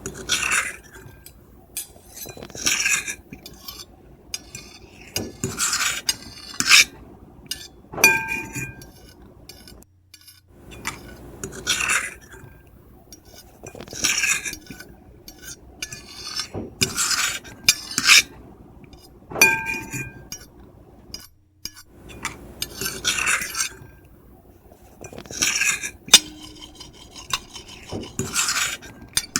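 Metal fork and knife scraping across a plate in short, irregular strokes every second or two. A few times the plate gives a brief ringing clink.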